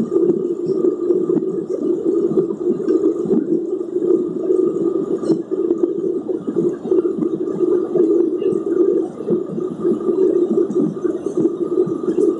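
Steady, muffled cabin drone of a Boeing 737-800 in its climb, heard from a window seat over the wing: CFM56 engine noise and rushing air, with a faint steady whine above it.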